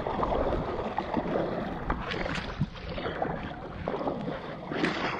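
Shallow seawater sloshing and splashing around legs wading through it, with wind buffeting the microphone.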